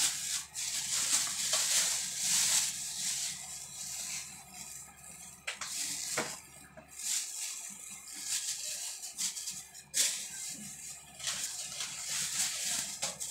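Plastic wrapping crinkling and rustling while a woofer speaker is handled in its cardboard box, with a few sharp knocks.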